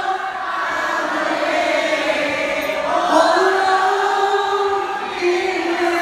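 Many voices singing a slow melody together in long held notes over music, changing pitch about halfway through: a concert crowd singing along.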